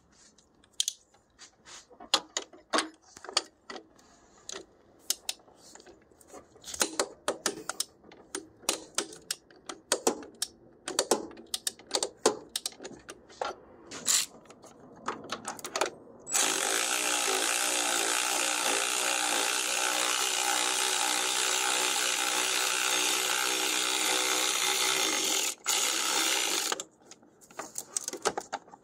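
Hand tools clicking and knocking against metal engine parts, then a power tool running steadily for about ten seconds, with a short break near the end, as fasteners are run out during a timing-belt teardown.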